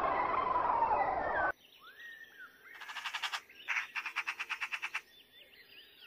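A flock of vultures squabbling at a carcass, a dense clamour of harsh, squealing calls that cuts off suddenly after about a second and a half. Then, much quieter, small birds calling: a few rising notes, two rapid pulsed trills in the middle, and faint chirps near the end.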